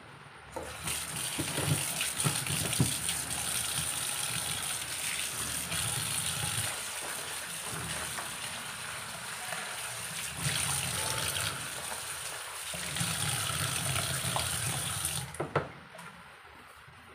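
Tap water running into a plastic bowl as sliced jengkol beans are rinsed by hand in a stainless-steel sink. The water starts about a second in and stops with a click a couple of seconds before the end.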